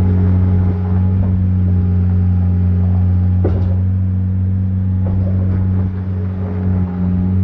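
Engine running steadily at a constant speed, with one short knock about three and a half seconds in.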